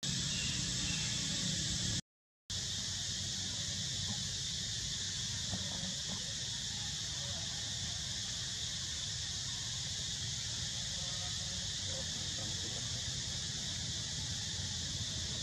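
A steady, high-pitched insect drone over a low rumble, cutting out completely for about half a second two seconds in.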